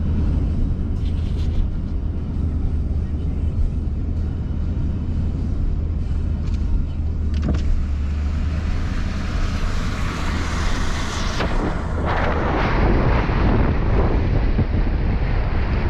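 Hurricane-force wind buffeting the microphone with a deep, steady rumble. Around ten seconds in a stronger gust builds, bringing a loud rushing hiss of wind-driven rain.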